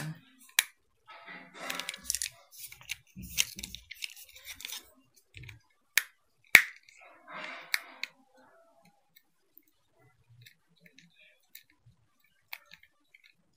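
A small screwdriver working out the screws that hold the circuit board in a plastic CCTV dome camera housing: scraping and handling of the plastic with several sharp clicks, the loudest a little after six seconds. After about eight seconds only faint scattered ticks.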